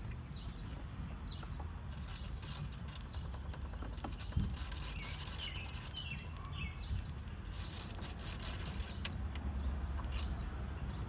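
Steady low outdoor background rumble with faint bird chirps in the middle and one light knock about four seconds in, from parts being handled.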